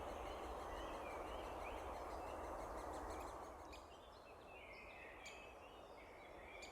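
Great spotted woodpecker chick calling: a string of short, high, repeated notes. Behind them is a faint steady outdoor hiss that drops away about three and a half seconds in.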